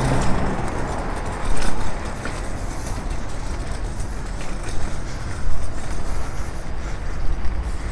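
Road traffic on a city street: a low, steady rumble of passing vehicles, with a few short knocks over it.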